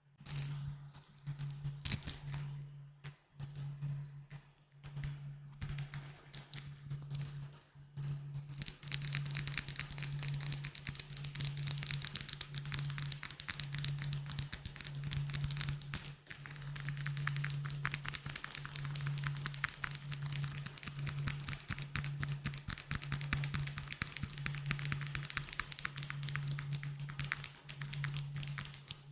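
Glass bottles being tapped rapidly: a few scattered taps at first, then from about eight seconds in a fast, unbroken flurry of taps.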